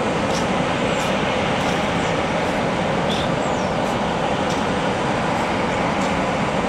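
Airbus A350's Rolls-Royce Trent XWB turbofan engines running at low taxi thrust as the airliner rolls toward the microphone: a steady, even rumble and hiss.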